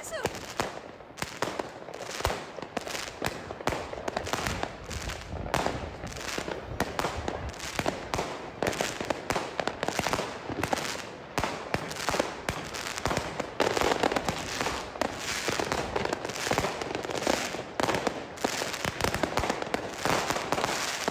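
Fireworks going off one after another: a dense, continuous string of sharp bangs and crackles, several a second, without a break.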